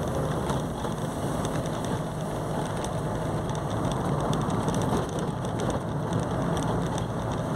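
Steady hiss of a car's tyres on wet asphalt, with the car's running noise, heard from inside the cabin while driving.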